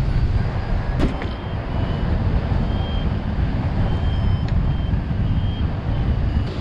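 Wind rushing over the microphone in flight, with short, high electronic beeps at irregular intervals and a sharp click about a second in.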